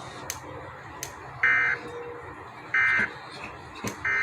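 Emergency Alert System end-of-message data tones: three short bursts of shrill digital data squeal about a second and a half apart, the third one cut off as it starts, marking the close of the alert. A few faint clicks fall between the bursts.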